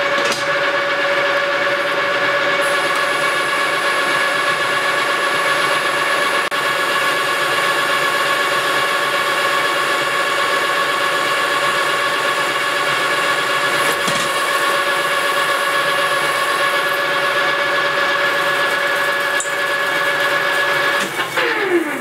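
Engine lathe running under power with a steady gear whine while the tool takes a facing cut, peeling long stringy chips off a metal workpiece. About a second before the end the spindle winds down, its whine falling in pitch.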